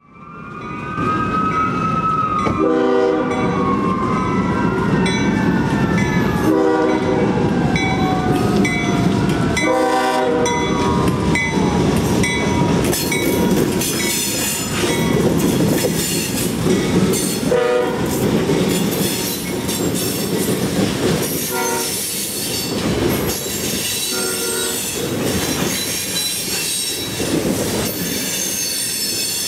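CSX freight train with ES40DC and C40-8W diesel-electric locomotives passing, sounding its horn in a few short blasts during the first ten seconds and more later on. A rising and falling wail runs through the first dozen seconds. Loaded rock hopper cars follow, with a heavy rumble, wheel squeal and clicking over the rail joints.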